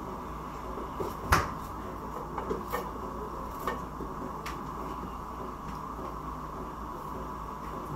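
A small kitchen knife cutting potato into chunks over a stainless-steel pot, with a few short clicks and knocks as pieces drop in and the blade taps; the loudest knock comes just over a second in. A steady hum runs underneath.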